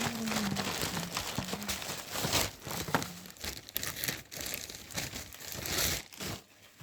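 Parcel packaging crinkling and rustling irregularly as it is unwrapped by hand.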